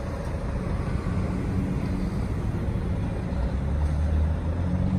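A car's engine and road noise heard from inside the cabin while driving: a steady low drone that grows a little louder about three and a half seconds in.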